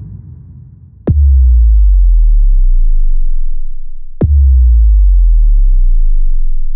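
Two deep electronic bass hits, about three seconds apart, each a sharp click followed by a long, very low boom that slowly fades, as in trailer-style end-card sound design.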